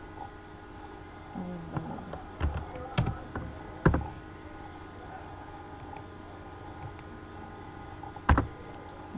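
Computer keyboard being typed on: a few scattered key presses in the first four seconds, then a long pause and one loud keystroke near the end, over a faint steady hum.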